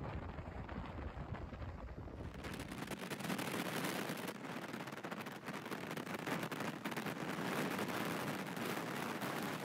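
Highway riding noise heard from a moving motorcycle: wind rushing over the microphone along with road and engine noise, with a rapid crackling. About two seconds in, the sound changes from a low rumble to a brighter, crackling rush.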